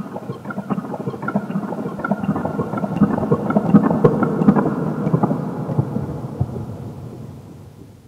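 Mutable Instruments Clouds granular processor, fully wet, putting out a dense, crackling, rumbling cloud of grains. It swells to its loudest around the middle, then fades out near the end.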